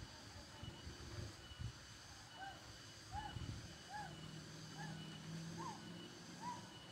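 Cengcoreng insects chirping in a faint, steady, pulsing high trill. From about two seconds in, another animal adds short rising-and-falling calls, repeated roughly once a second.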